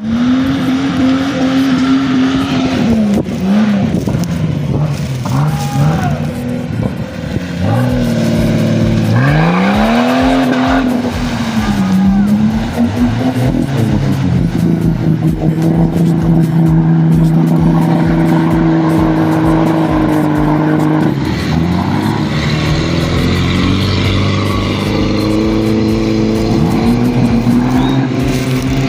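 Jeep Grand Cherokee's engine revving under load off-road in mud: the revs surge up and fall back again and again, hold high and steady for several seconds in the middle, drop, and then climb again near the end.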